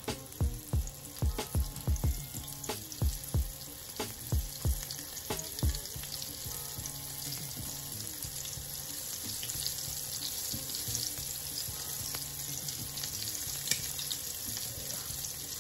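Flour-dredged fish fillet frying in hot oil in a stainless steel skillet, with sharp pops in the first six seconds or so, then a steady sizzle.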